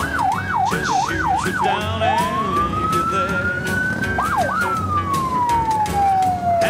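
A siren sounding over the low rumble of parading Harley-Davidson V-twin motorcycles: it first warbles quickly up and down about three times a second, then switches to one slow rising wail, two brief dips, and a long slow fall.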